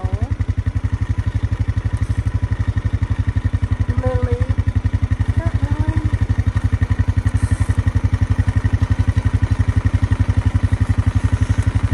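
Small vehicle engine running steadily with a low, even, rapid pulsing.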